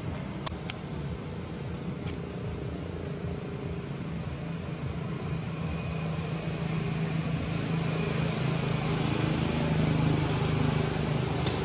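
Outdoor ambience: a steady high insect drone under a low, even hum that grows louder toward the end. Two brief sharp clicks, about half a second and two seconds in.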